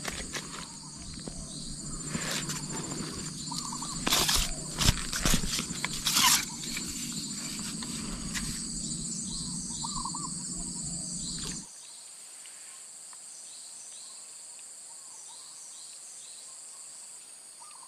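Steady high-pitched chorus of insects, with a few loud rustles and knocks of handling about four to six seconds in. The background drops suddenly about two-thirds of the way through.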